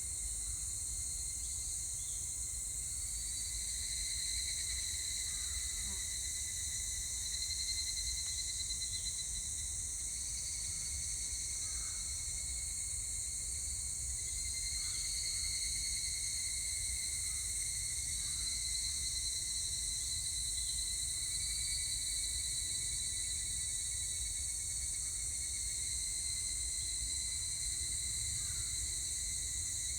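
Higurashi (evening cicadas) calling, their songs swelling and fading in overlapping phrases of several seconds, over a steady high-pitched insect buzz.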